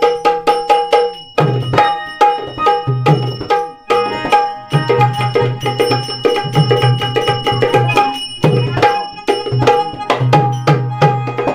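Instrumental introduction of a Marathi folk song: an electronic keyboard plays a melody while small brass hand cymbals tap out a steady beat. A dholki drum joins with a driving rhythm about a second and a half in, with a short break near four seconds.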